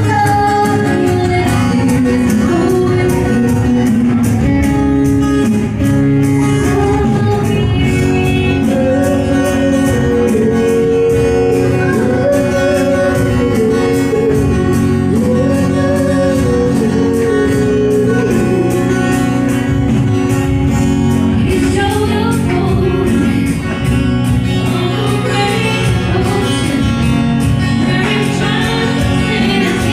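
Acoustic band performing a song: a lead singer's melody over guitar and a steady accompaniment, playing without a break.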